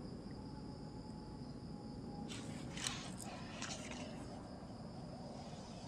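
Crickets chirring steadily in a high, even band, with a few short rustles and clicks about halfway through.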